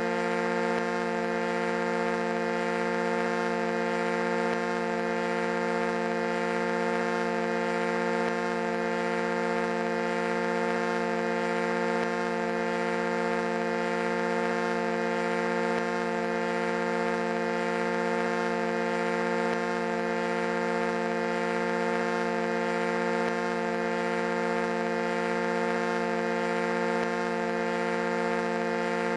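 A foghorn blowing one long, unbroken blast that holds the same pitch and loudness throughout.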